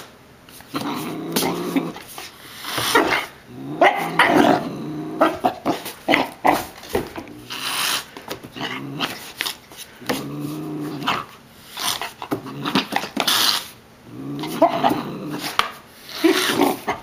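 Doberman puppy growling in repeated short bouts while play-fighting, with scuffling clicks in between.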